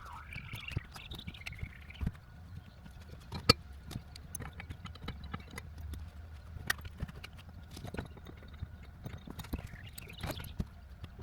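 Irregular clicks and knocks of hand tools and metal parts being handled while a harness bar is fitted in a car interior, with one sharper knock about three and a half seconds in.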